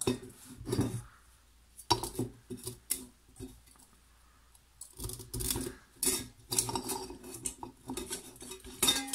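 Clinking and scraping of a cut-open John Deere DZ101880 oil filter being handled: the steel can and its pleated element knock and rub as the element is sat back into the can on its coil spring. There are a few separate sharp clinks at first, then a short pause, then a busier run of knocks and rubbing about halfway through.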